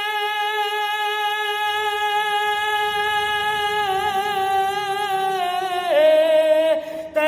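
A solo voice singing a naat without instruments, holding one long wavering note that drops in pitch about six seconds in and breaks off briefly near the end, over a faint low hum.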